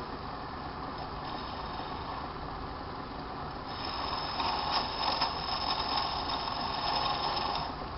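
Small lathe running steadily; about halfway through, a hand-held cutting tool is pressed into the spinning bone workpiece, adding a scraping hiss with a few sharp ticks for about four seconds before it eases off near the end.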